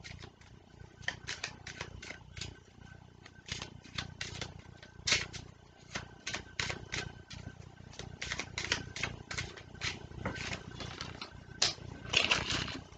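Tarot cards being shuffled by hand: a run of irregular soft clicks and slaps as the cards are worked through, several a second, louder in spells.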